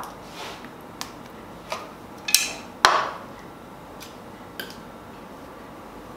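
Metal spatula scraping and tapping on a stone countertop as thick cooked gram-flour batter is spread thin: several light clicks with brief scrapes, and one sharper knock about three seconds in.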